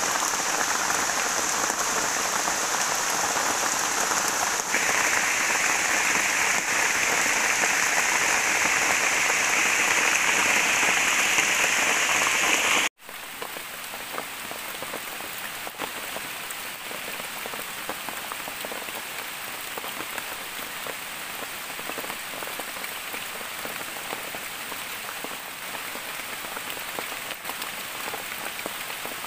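Steady rain falling on forest foliage and the forest floor, an even hiss with a steady high-pitched band over it. About halfway through it drops suddenly to a quieter rain that carries on evenly.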